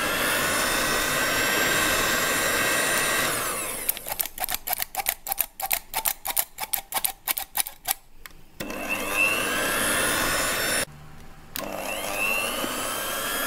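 Electric hand mixer running on low speed, its beaters working flour into cake batter, with a steady motor whine. For a few seconds in the middle the sound breaks into a rapid stutter; it runs steadily again, then stops for a moment near the end and starts back up.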